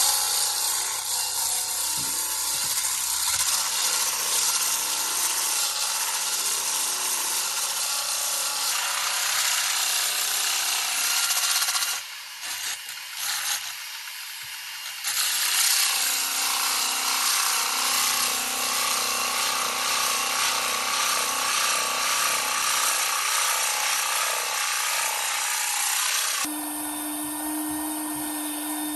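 Power sander running against wooden deck planking, a steady abrasive whir. It stops for a few seconds about halfway through, then starts again; near the end it gives way to a steadier hum with a low held tone.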